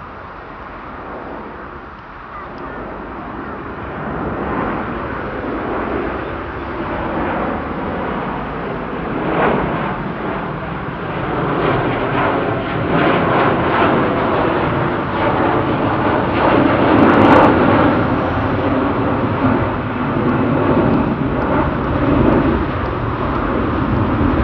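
Jet airliner's engines at high thrust during a departure, a rough, crackling jet noise with a low hum that grows steadily louder over the first two-thirds and then holds loud.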